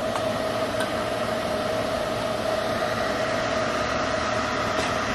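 A steady mechanical hum with an even hiss, like a fan or other machine running continuously.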